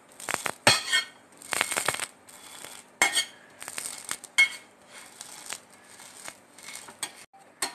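Metal spatula scraping and clinking against a flat griddle (tava) while it presses and turns the edges of a pancake: a dozen or so short, irregular scrapes and taps.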